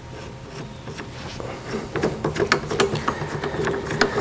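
Irregular metallic clicks and knocks of hands refitting the feed finger and cam parts on a Cook's Cat Claw bandsaw blade sharpener head, growing busier about halfway through, over a faint steady hum.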